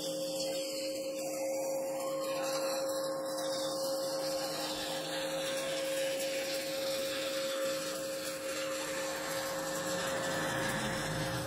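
Stick (MMA) welding arc crackling and hissing steadily as a 2.6 mm electrode burns during a long test bead from a small inverter welder, with a steady faint tone underneath.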